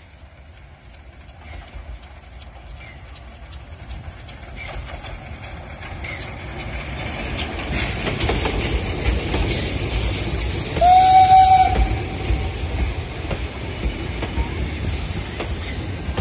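Steam tank locomotive 310.0134 running past with its train of coaches, wheels clattering on the rails, growing louder as it nears. About eleven seconds in it gives one steam whistle blast lasting about a second.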